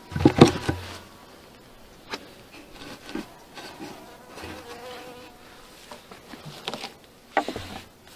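Honeybees buzzing around an open hive, with knocks and rustling as the hive is handled: a loud cluster of knocks in the first second, then a few single knocks, and more near the end as the roof is set back on.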